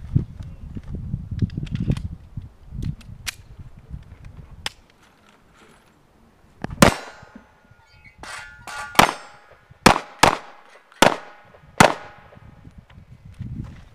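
Handgun shots: six in all, one about seven seconds in and five more in an uneven string over the next five seconds, each with a brief ringing tail.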